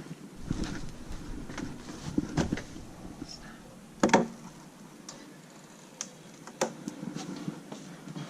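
Scattered light knocks and clicks, with one louder knock about four seconds in and a few sharp clicks near the end.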